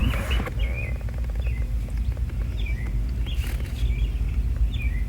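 Small birds chirping: short, quick, pitch-bending chirps at irregular intervals throughout, over a steady low rumble.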